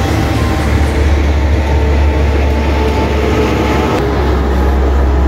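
Steady low rumble of highway traffic, with heavy vehicles such as a loaded cargo truck driving past. The sound changes abruptly about four seconds in.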